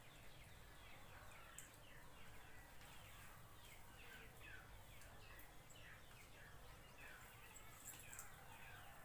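Faint chirping of small birds: a steady string of short, quick falling chirps, over low hum.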